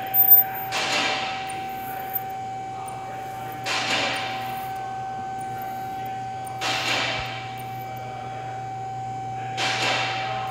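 Handheld plastic welding tool working spot by spot along a seam in a white plastic part: four bursts of noise, each about a second long and about three seconds apart, over a steady tone and a low hum from the equipment.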